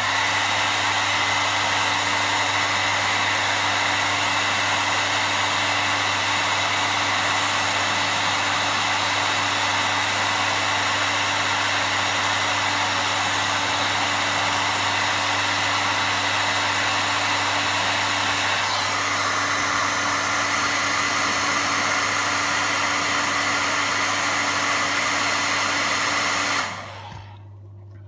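Hot air gun blowing steadily, warming an Apple Watch to help pry it open. The fan's tone shifts slightly about two-thirds of the way through, and it cuts off near the end.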